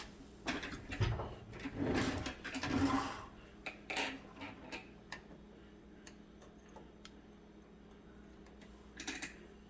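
Close handling of small metal parts and a hand tool: a few rubs and knocks in the first three seconds, then scattered light clicks, over a faint steady hum.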